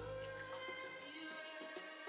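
Instrumental background music with sustained melody notes; the heavy bass line drops out right at the start.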